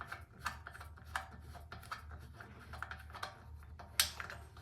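Small irregular clicks and ticks of a tool on a small screw and metal parts of a British Seagull outboard being taken apart, with one sharper click about four seconds in.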